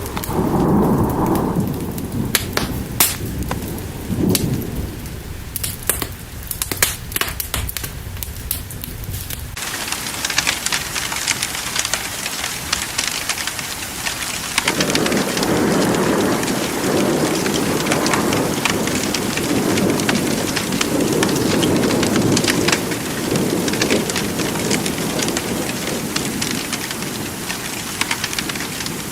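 Thunderstorm: rain with rolling thunder. The first third has thunder rumbles under sparse sharp crackles, then it cuts suddenly to a dense, steady downpour, with thunder rumbling again through the middle.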